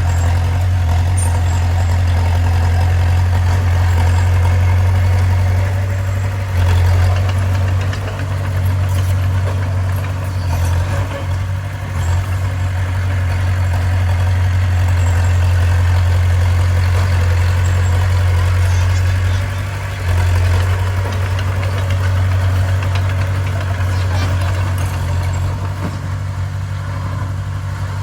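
Bulldozer's heavy diesel engine running steadily with a deep, continuous drone, easing off briefly a few times.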